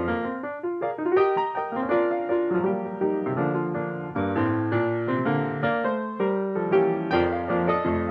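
Piano music: notes and chords struck in a flowing run, several a second.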